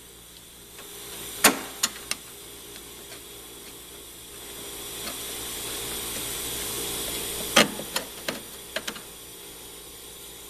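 Hand work on small fasteners: sharp metallic clicks and taps as screws are started into the snowmobile running board's foot stop, three clicks near two seconds in and a quick run of five or so near the end, with a rising rubbing scrape between them.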